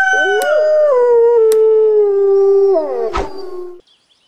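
Wolf howl sound effect: a long, drawn-out howl that slides down in pitch in steps. A second howling voice rises in under it near the start. It cuts off about three and a half seconds in.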